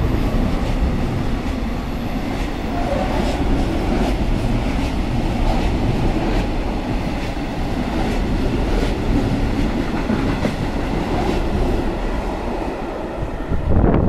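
Freight train wagons rolling past on the rails, a steady heavy rumble with wheel clicks about once a second. There is a louder clatter just before the end, and then the sound starts to fall away.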